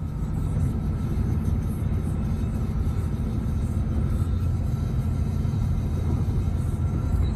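Steady low rumble of road and engine noise inside a car cruising at highway speed.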